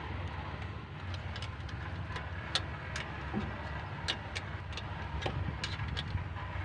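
Small wrench clicking against the alternator's output terminal nut as it is tightened: a handful of sharp, irregular metal clicks over a steady low mechanical hum.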